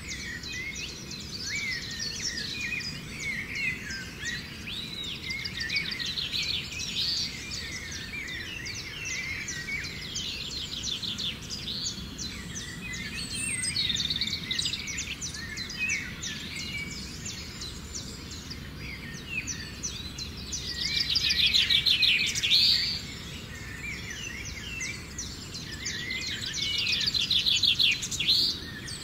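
Many birds chirping and calling at once, with rapid trills that swell up several times and are loudest about three-quarters of the way through and again near the end.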